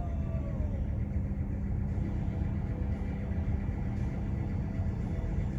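Container ship under way: its engine and machinery give a steady low rumble with a constant drone, heard from on deck.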